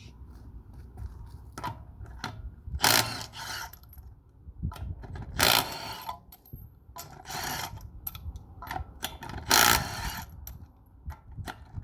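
Wrench ratcheting on the wheel's lug nuts: four short runs of clicking, with scattered single clicks in between.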